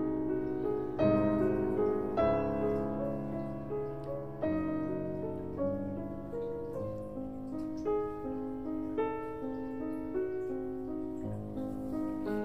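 Background piano music: slow notes and chords struck every second or two, each left to ring and fade.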